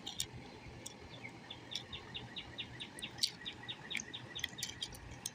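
A bird's rapid trill of short high chirps, about five a second, lasting roughly three seconds, with a few faint sharp clicks scattered around it.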